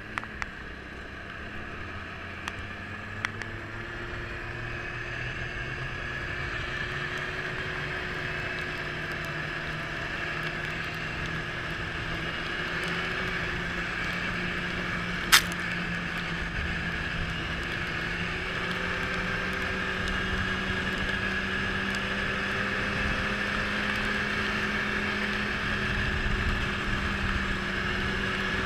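Yamaha snowmobile engine running steadily under way, its note rising slightly early on and gradually growing louder as it picks up speed. A single sharp click about halfway through.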